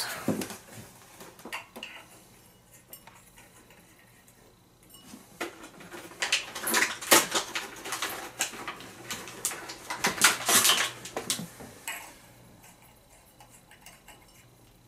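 Glass shades of a ceiling fan's light kit clinking and rattling against the fixture as they are handled, in two bursts of quick clinks, about five and ten seconds in.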